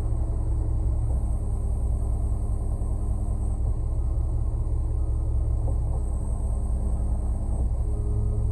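Concrete mixer truck's diesel engine running steadily, a low rumble with a hum whose pitch shifts slightly about a second in and again around six seconds in.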